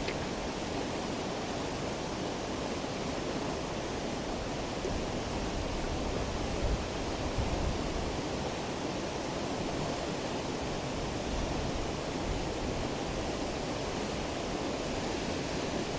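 Steady rushing of a river in flood, an even wash of water noise with no breaks.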